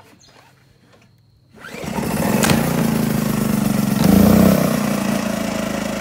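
Champion inverter generator's small gasoline engine pull-started on choke, catching on the first pull about a second and a half in. It surges briefly, then settles into steady running.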